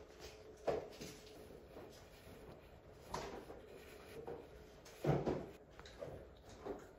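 Hands handling clear plastic sticker sheets and small paper cards: soft crinkles and rustles of plastic and paper, with four short handling knocks, the loudest about five seconds in.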